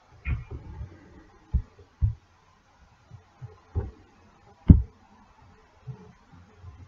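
Scattered soft, low thumps and knocks at irregular moments, with one sharper, louder click about two-thirds of the way through.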